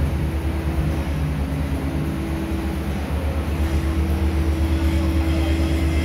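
An engine or motor running steadily: a low rumble with a faint steady hum.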